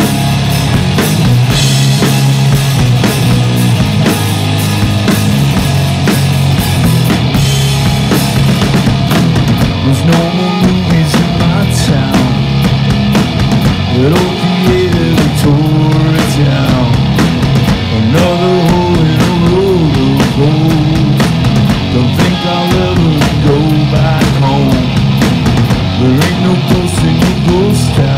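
Live rock band, an electric guitar and a drum kit with cymbals playing loud and steady, with a man's singing voice coming in about ten seconds in.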